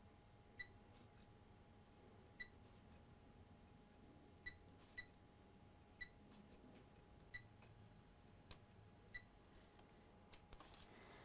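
Multimeter in diode mode giving short, faint beeps as its probe is touched to one test point after another on a laptop motherboard, about eight irregularly spaced chirps.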